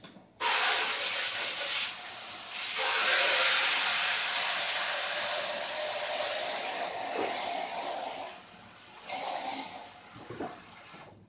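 Kitchen tap running, water rushing into a pitcher as it is rinsed out. The rush starts abruptly, grows louder about three seconds in, and eases off near the end.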